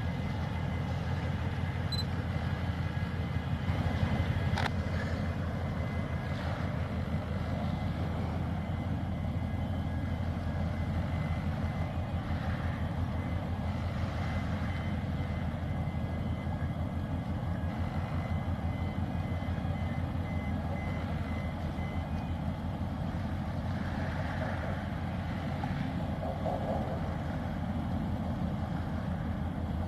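Steady low rumble of heavy engines, with a vehicle's reversing alarm beeping evenly and repeatedly through most of it, stopping about two-thirds of the way in.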